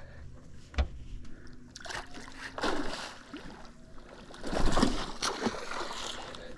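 A hooked barramundi splashing and sloshing at the surface close to the boat as it is played in, in several bursts, the loudest about two-thirds of the way through. A sharp knock just under a second in.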